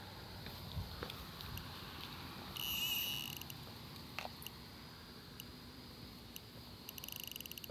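Handheld RF bug detector beeping: one high-pitched beep of about half a second around three seconds in, then a fast run of short beeps near the end. This is the alert it gives on picking up a radio-frequency signal.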